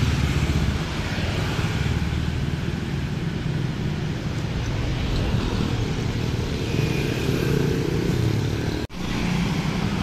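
Road traffic passing close by: small motorcycle engines and car and minivan engines running at road speed, with tyre noise. The sound drops out for an instant about nine seconds in.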